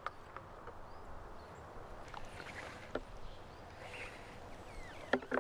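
Soapy bubble mixture sloshing and swishing in a plastic tub as a wire bubble wand is swirled through it, with a few faint drips and splashes.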